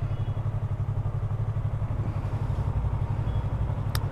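Yamaha R3's parallel-twin engine running at low revs as the motorcycle rolls slowly, a steady low throb; a sharp click near the end.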